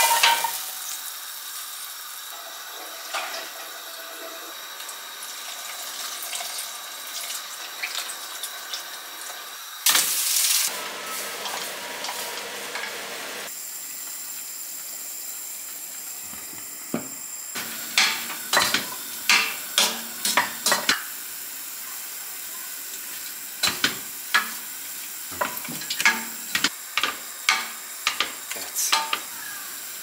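Chopped vegetables sizzling gently in olive oil in a pot as they sweat without browning. There is a louder surge of sizzle about ten seconds in, and in the second half a run of sharp knocks as a utensil stirs against the pan.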